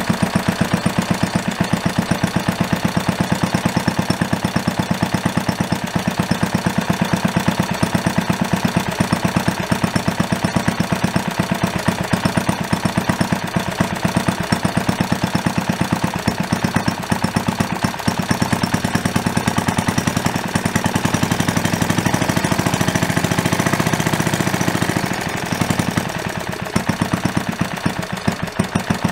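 1941 Briggs & Stratton Charger single-cylinder engine running on the bench with a steady beat of distinct firing pulses. Around two-thirds of the way through the beat runs smoother and faster for a few seconds, then dips and falls back to the slower, separate pulses near the end.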